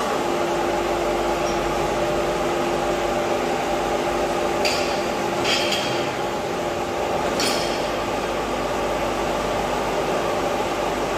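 A steady machine noise with a constant hum, from metalworking on a vehicle chassis frame. Three short metallic clinks come near the middle.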